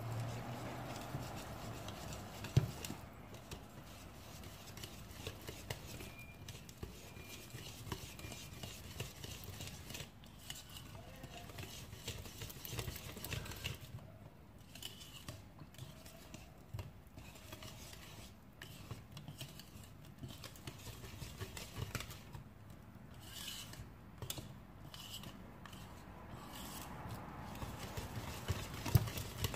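Wire whisk beating thick cake batter in a ceramic mixing bowl: a steady run of quick clicks and scrapes as the wires hit the bowl, with a sharper knock about three seconds in and another near the end.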